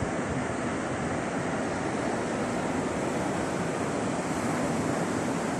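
Steady rush of sea surf mixed with wind on the microphone, with no separate events standing out.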